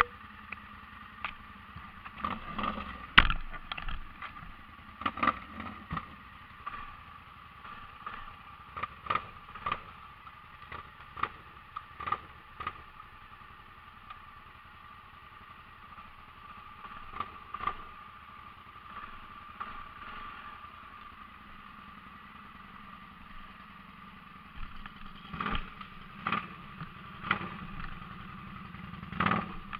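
ATV engine running steadily, with irregular knocks and rattles of the machine throughout, a loud knock about three seconds in and a cluster of them near the end.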